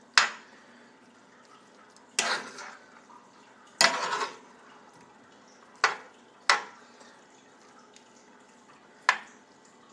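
A metal spoon knocking and scraping against a skillet while stirring rice, chicken and broccoli. There are about six sharp clanks at irregular intervals, two of them drawn out into short scrapes.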